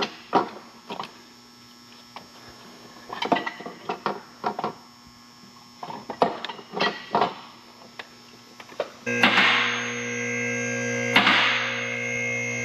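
Scattered metallic clanks and knocks as a turbocharger is worked into place in a car's engine bay, over a faint steady hum. About nine seconds in, a much louder steady electrical hum with hiss starts abruptly and keeps going.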